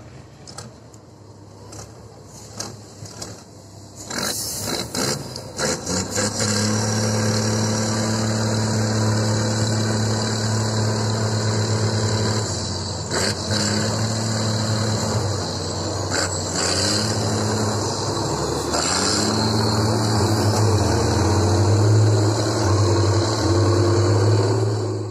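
Trial truck's engine revving hard under load as the truck climbs a steep dirt mound. It is quieter for the first few seconds, rises about four seconds in, then holds high steady revs, dipping briefly a few times.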